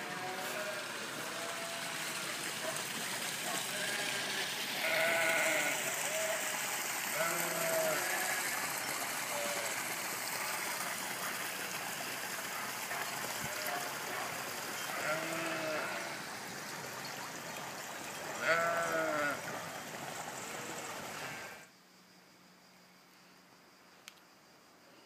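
Sheep bleating, many short calls one after another, over a steady hiss; the sound cuts off suddenly near the end, leaving near quiet.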